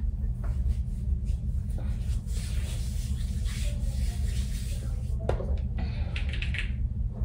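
Faint rubbing and handling sounds as a gel skin serum is applied to the skin and its small bottle is handled, with a few short hissy scrapes near the end, over a steady low hum.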